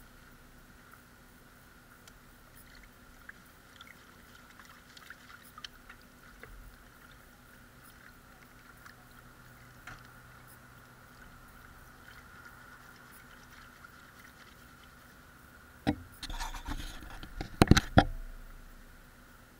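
Water splashing and sloshing as a blue plastic gold pan is worked in a tub of water, washing light sand off the concentrates. Only faint small knocks and sloshes at first, then loud splashing for about two seconds near the end.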